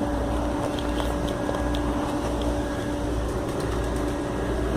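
Steady machine hum at one constant pitch, over a low rumble.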